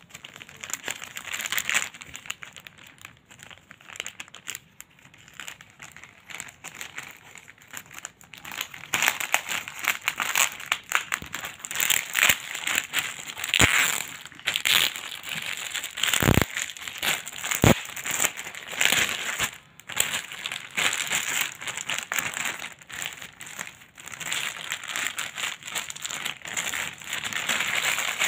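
Clear plastic packaging bag crinkling and rustling as hands handle it and pull it open, in irregular bursts that get busier about a third of the way in. A few sharp thumps come around the middle.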